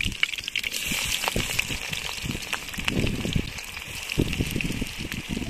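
Chopped onion going into hot oil and chilli in a kadai, sizzling steadily with many small pops and crackles. There are a few dull low knocks around the middle.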